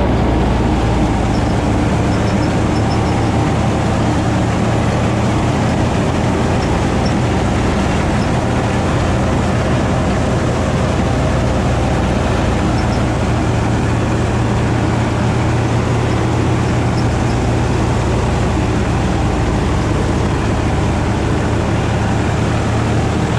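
Swaraj 855 tractor's three-cylinder diesel engine running steadily under load, driving a KSA straw reaper that picks up dry stubble, chops it into straw chaff and blows it up its chute. A loud, even machine drone with a steady low hum.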